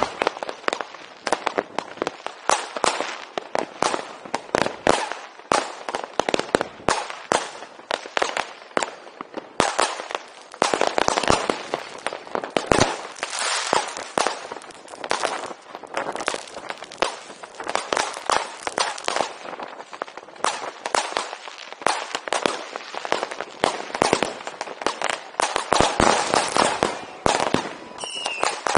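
Fireworks and firecrackers going off in a continuous barrage: dense, overlapping bangs and crackles without a pause, mostly sharp and high with little low rumble.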